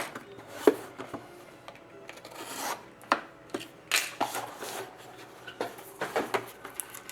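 A box of trading cards being handled and opened by hand: short cardboard scrapes and rubs, with a few sharp clicks, the sharpest about a second in.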